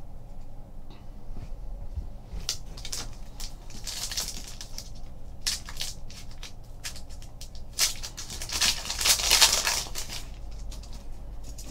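A trading card pack wrapper being torn open and crinkled by hand, in two bouts of crackling: one about two and a half seconds in, and a louder one about eight seconds in.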